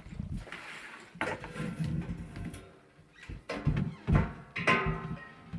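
Irregular knocks, thumps and rustling of things being handled and moved about, with a few sharper knocks in the second half.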